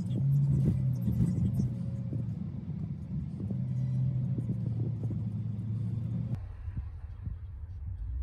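Low, steady road and engine rumble heard from inside a moving car, with scattered small knocks. The sound changes abruptly and drops in level about six seconds in.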